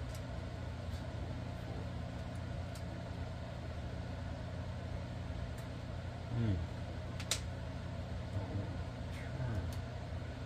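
Steady low background hum with a few light clicks of small metal reel parts being handled, the sharpest click about seven seconds in. A brief low murmur falling in pitch comes about six seconds in.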